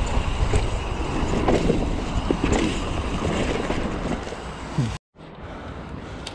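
Wind buffeting the microphone over the rolling noise of a mountain bike on a dirt trail. About five seconds in the sound cuts off abruptly and picks up again quieter.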